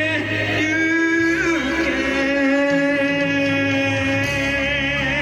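Stage band music with long held notes that waver in vibrato over a steady bass line.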